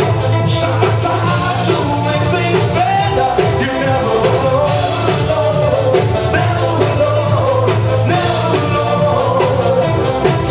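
Live band playing an upbeat rock number: a male lead singer sings into a handheld microphone over electric guitar, a steady low bass line and a regular drum beat.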